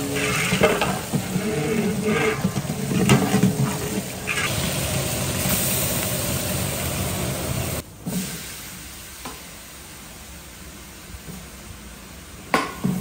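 Sliced onions and curry leaves sizzling in hot oil in a large aluminium pot while a long ladle stirs them. About eight seconds in, the sound drops suddenly to a quieter steady hiss, and a single sharp knock comes near the end.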